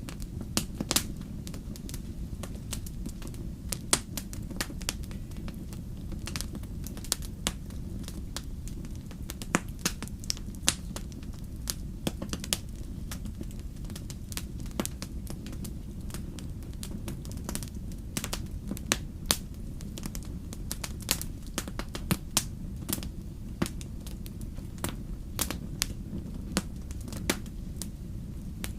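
Wood campfire burning, with frequent irregular sharp crackles and pops from the burning wood over a steady low rumble.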